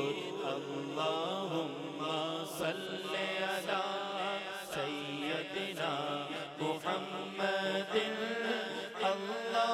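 Unaccompanied devotional chanting of an Urdu naat by men's voices through a microphone: a wavering, drawn-out melodic line over a steady low hum.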